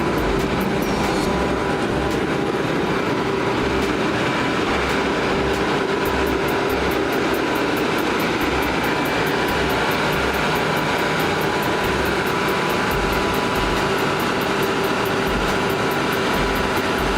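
Detroit Diesel 6V92 two-stroke V6 diesel engine of a 300 kW Kohler generator set running steadily under its own power.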